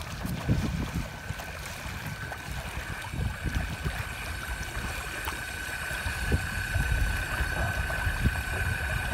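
Water rushing and splashing along the hull of a motor-driven inflatable kayak, with a steady high whine from its electric motor that grows a little stronger partway through and wind buffeting the microphone.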